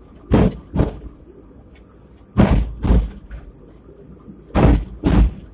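Hong Kong tram's steel wheels knocking over rail joints: three pairs of heavy clacks, the two in each pair about half a second apart as the front and rear axles cross, with a low running rumble between.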